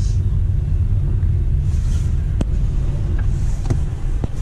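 Low steady rumble heard inside a car's cabin, with a few sharp clicks.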